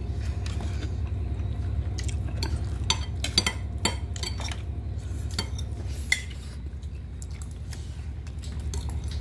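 Fingers scraping and tapping on a ceramic plate, giving scattered light clinks and knocks at irregular moments, over a steady low hum.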